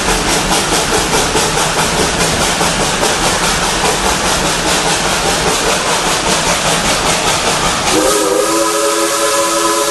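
Steam locomotive No. 190, a Baldwin-built engine, working with rhythmic exhaust chuffing and a loud hiss as the train runs. About eight seconds in, its steam whistle sounds a long, steady chord of several notes.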